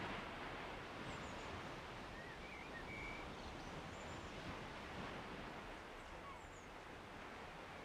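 Quiet open-air ambience: a steady faint hiss of wind and distant surroundings, with a few faint bird chirps, a short cluster of them two to three seconds in.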